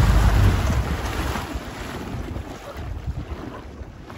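Small boat's outboard motor humming, dying away about half a second in, leaving wind on the microphone and water lapping that grow steadily quieter.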